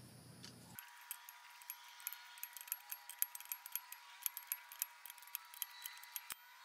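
Socket ratchet clicking in quick, irregular runs as the ball joint fastener on a VW Jetta steering knuckle is turned loose, with metal tools clinking lightly.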